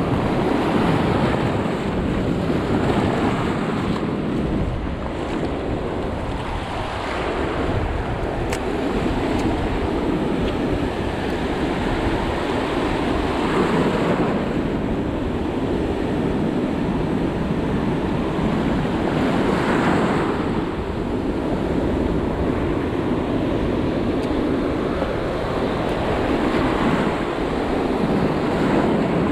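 Wind buffeting the microphone over waves washing and surging, as a steady rush that swells several times.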